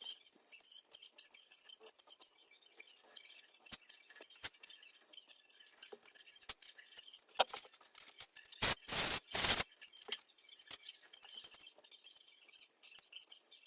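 Handling sounds of small repair work: scattered light clicks and taps, and a loud scraping or rubbing noise in two or three quick strokes a little past the middle.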